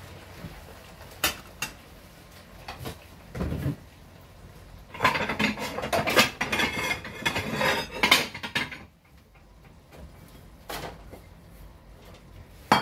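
Kitchenware clinking and clattering: a few single knocks, then a dense run of clatter lasting about four seconds in the middle, and another couple of knocks near the end.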